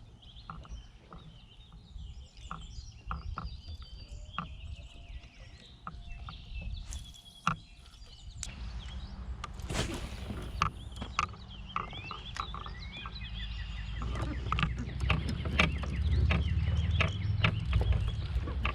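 Outdoor creek ambience: birds chirping over scattered clicks and knocks, with a low rumbling rush that grows louder from about halfway through.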